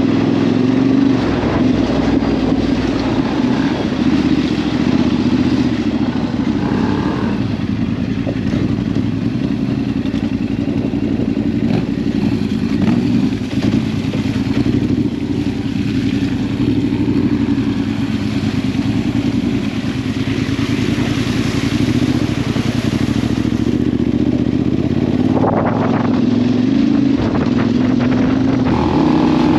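Dual-sport motorcycle engine running at a steady, moderate pace on the rider's own bike, with no big revs.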